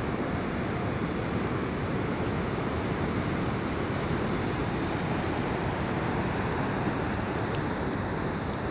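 Steady rushing roar of the Trümmelbach waterfall, even and unbroken.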